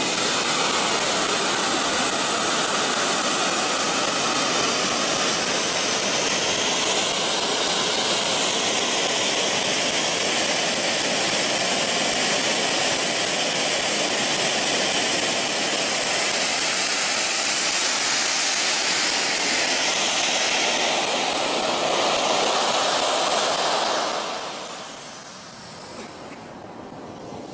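Small gas turbine engine of a radio-controlled model jet running loud and steady, a rushing jet blast with a high whine over it. It falls much quieter about 24 seconds in.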